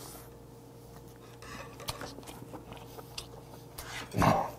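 Close-miked chewing of steamed red snow crab claw meat, with small wet mouth clicks. A short, much louder low sound a little after four seconds in, a thump or a hum.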